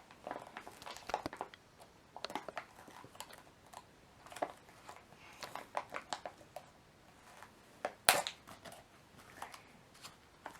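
Toy packaging being handled and worked open, with quiet crinkling and scattered clicks and one sharper click about eight seconds in.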